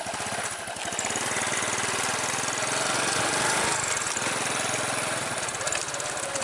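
Small motorcycle engine running steadily while the bike is ridden, a little louder after the first second.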